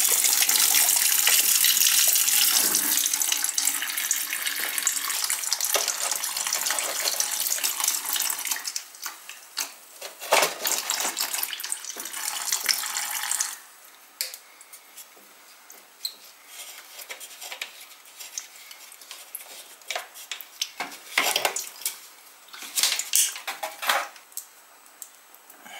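Engine coolant pouring from a KTM Duke 790's disconnected radiator hose into a plastic bucket as the cooling system drains. The steady pour thins after about eight seconds and stops about thirteen seconds in. A few light knocks and clicks follow.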